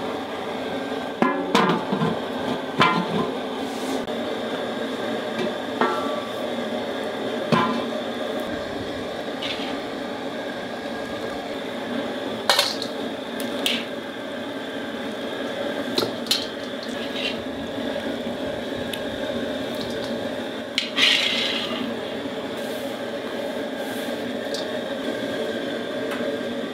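A big cast-iron cauldron of chicken feet boiling in broth gives a steady sound throughout. A metal skimmer and the heavy lid clink and knock against the pot about a dozen times, at irregular moments.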